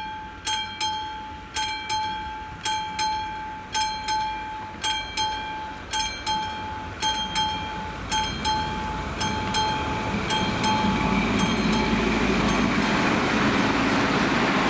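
Level crossing warning bell striking in quick double strokes, repeating about once a second. From about ten seconds in, a vintage ČSD M131.1 railbus approaches and runs over the crossing, its rising running noise covering the bell.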